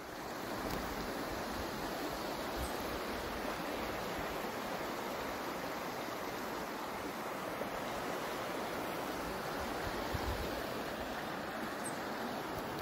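Small, shallow rocky stream running steadily over stones, a continuous rushing of water that swells up in the first second.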